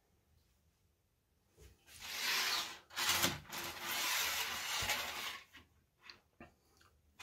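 Hands and a sleeve rubbing and sliding across a smooth tabletop for about four seconds, with a few light knocks as small brass pieces are picked up and a brass rod is laid down.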